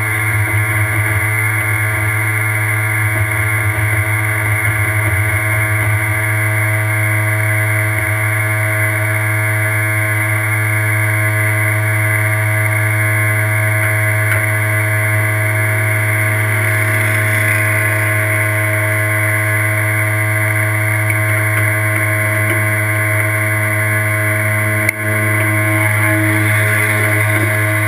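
Off-road race buggy's engine running at steady high revs, its pitch held almost constant, with a momentary drop in sound near the end.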